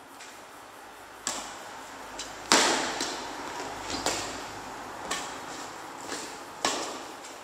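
Badminton rally: rackets striking a shuttlecock back and forth, about five sharp hits roughly a second or so apart, the loudest about two and a half seconds in. Each hit is followed by a short echo.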